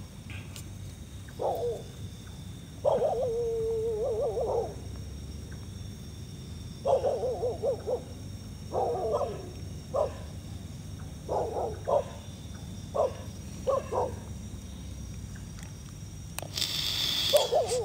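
A dog calling again and again, in short wavering barks and whines with one drawn-out howl about three seconds in. The host takes the barking as a sign that the dog is seeing something. Near the end there is a brief burst of hiss.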